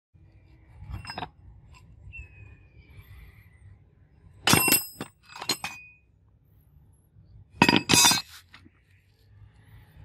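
Rusty steel scrap pieces clanking and clinking against each other as they are picked through by hand, each knock ringing briefly. The loudest clanks come about four and a half seconds in and again near eight seconds, with a softer clink about a second in.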